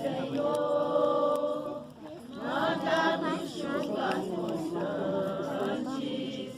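A group of voices singing together without instruments, in long held notes with short breaks between phrases.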